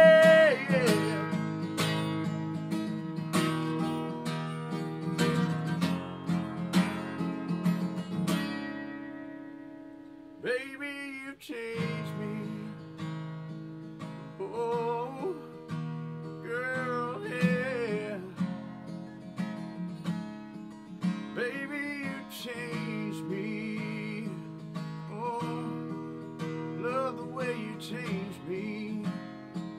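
Male voice singing over a strummed steel-string acoustic guitar. A loud held sung note ends just after the start and the strumming carries on alone, fading out about nine seconds in. The singing resumes about ten seconds in, softer, over lighter guitar.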